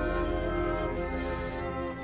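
Orchestral background music playing long, held chords.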